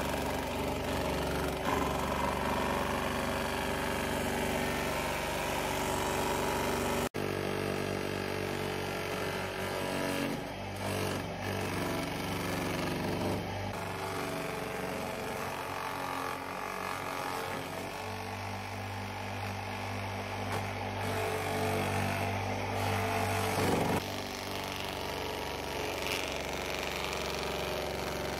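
Multipurpose crusher's motor running steadily, with a brief drop-out about seven seconds in.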